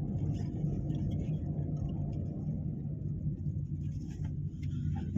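Car's engine and tyres rumbling steadily inside the cabin while driving along a road.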